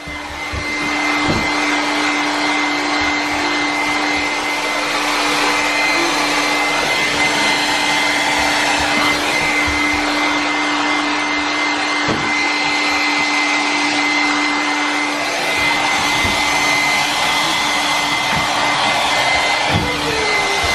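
Handheld hair dryer running steadily on a pet bird to dry its feathers after a bath, a constant rush of air with a steady motor whine.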